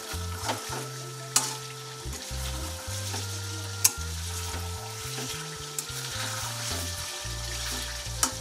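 Chicken pieces in spiced masala sizzling in a metal karahi while a flat metal spatula stirs and turns them, with three sharp knocks of the spatula against the pan. This is the end of the kosha stage: the masala is fried down and dry, before any water goes in.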